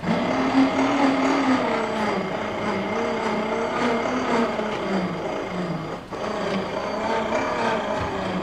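A motor running steadily with a humming, wavering pitch, starting abruptly.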